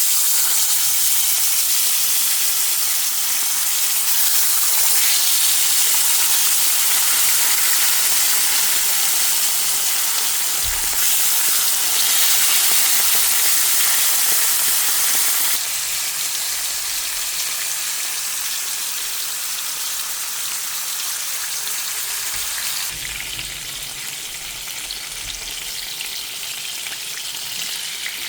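Rupchanda (silver pomfret) frying in hot oil in a pan: a steady, loud sizzle that drops a little in level about halfway through and again near the end, with a brief low knock about ten seconds in.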